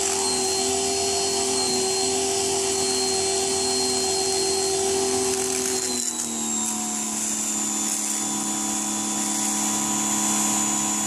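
Ryobi 1600 PSI electric pressure washer running steadily, its motor and pump whining over the hiss of the jet from the yellow high-pressure nozzle on the concrete. About six seconds in the whine drops to a lower pitch.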